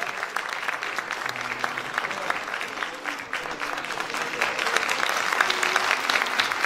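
Audience applauding: a dense patter of many hand claps that grows louder about four seconds in.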